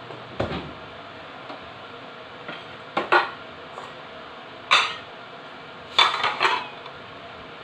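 Stainless steel bowl and plate knocking and clinking together as they are handled, in four short bouts, the last a quick cluster of clatters, over a steady low hiss.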